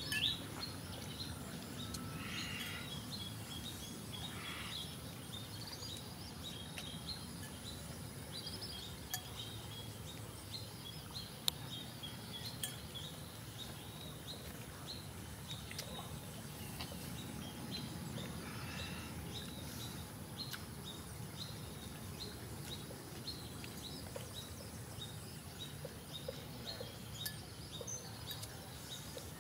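Forest ambience: small birds chirping in short repeated calls, thickest in the first third, over a thin steady high tone that stops about nine seconds in. One sharp click about eleven seconds in.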